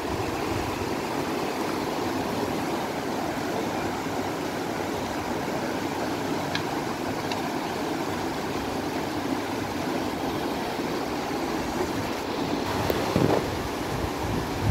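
Steady rush of river water flowing over shallow rocks and rapids.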